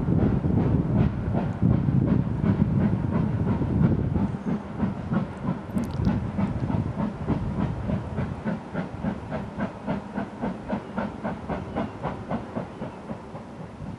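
Steam locomotive working a train past, its exhaust chuffing in a quick, even rhythm that fades steadily over the second half as it draws away.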